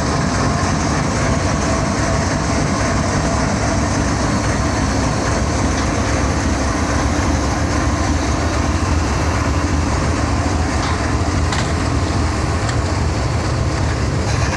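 GEU-40 diesel-electric locomotive's engine idling at a standstill: a steady deep rumble with faint steady tones above it.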